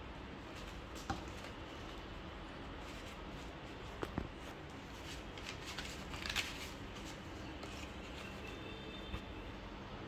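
Paper banknotes and a leather wallet being handled: faint rustling of the notes with a few small clicks, the loudest rustling a little past the middle.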